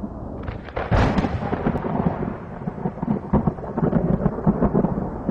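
Thunder sound effect for a stormy logo intro: a crash of thunder about a second in, followed by a long crackling, rolling rumble.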